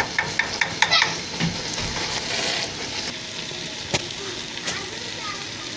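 Pot of biryani rice bubbling and sizzling as the last of its cooking water boils off, with a spoon clicking against the aluminium pot several times in the first second and once more about four seconds in.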